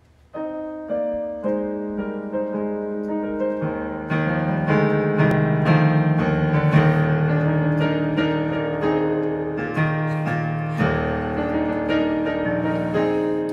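Solo piano introduction: single notes at a slow, even pace, filling out into fuller chords with a bass line from about four seconds in.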